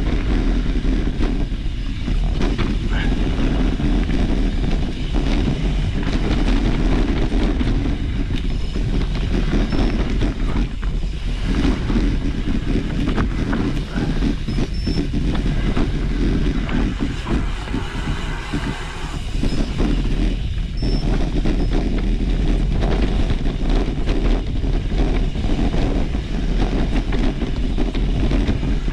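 Mountain bike riding on a trail: a continuous rumble and clatter of the bike rattling over rough ground, with a few brief easings along the way.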